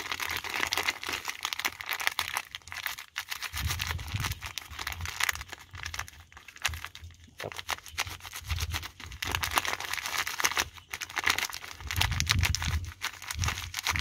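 Plastic seasoning sachet crinkling and rustling as it is squeezed, worked open and shaken by hand, with a few low rumbles underneath.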